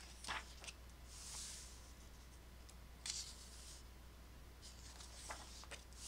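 Thin paper page of a softcover coloring book being turned by hand: a soft swish of paper about a second in, a few light ticks of paper and fingers, and another swish near the end as the new page is smoothed down.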